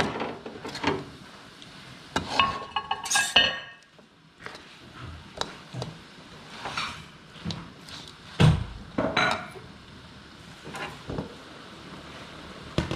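A metal ladle scraping and knocking against a large aluminium wok as a meat and greens stir-fry is tossed. There are irregular clanks and scrapes, with a ringing clatter about three seconds in and a sharp knock about two-thirds of the way through.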